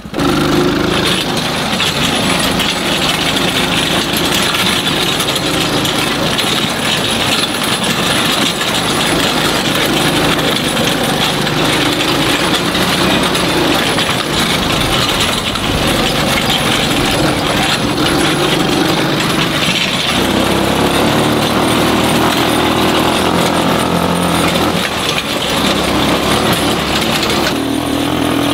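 Small engine of a kids' ride-on tractor running steadily under load as it drags a plow through dry dirt, with the plow's tines clattering and scraping over the ground.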